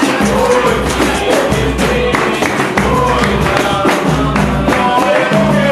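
Capoeira roda music: berimbau and hand percussion keeping a steady rhythm, with voices singing over it.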